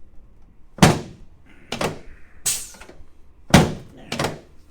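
Chiropractic table thunking sharply five times as thrusts are delivered to the patient's left sacroiliac joint. The loudest strikes come about a second in and about three and a half seconds in.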